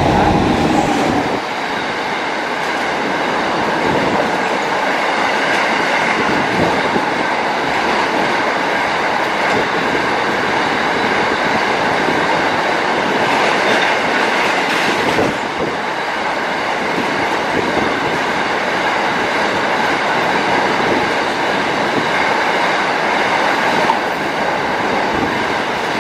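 A WAG-9 electric locomotive passing close by at the start, loudest then, followed by a long container freight train rolling past with the steady noise of wagon wheels running on the rails.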